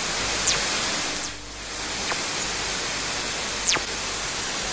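Space radio signal recording played as audio, presented as fast radio bursts: a steady static hiss crossed by a few quick falling whistles, the clearest about half a second in, just after a second, and near four seconds.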